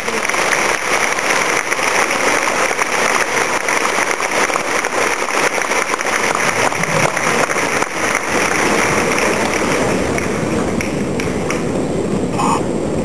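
A large crowd applauding in a big hall: dense, steady clapping that carries on without a break.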